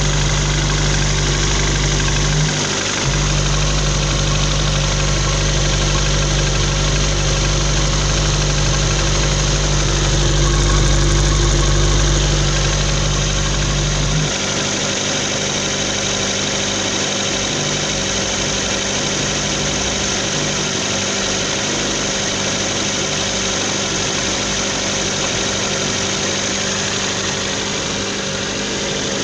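Car engine idling cold with a clinking, rattling tick (şıkırtı) that goes away once the engine warms up. The owner suspects the valves, most likely a burnt one on cylinder 4. The deep low drone drops away about halfway through.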